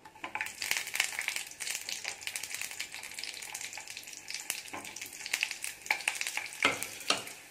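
Sliced onion sizzling and crackling in hot oil with mustard seeds as the pieces are dropped into the pan, with a few louder clicks from the wooden spatula near the end.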